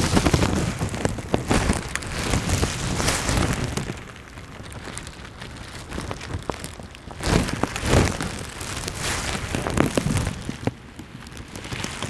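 Rain falling steadily, with scattered drop impacts and irregular louder thumps.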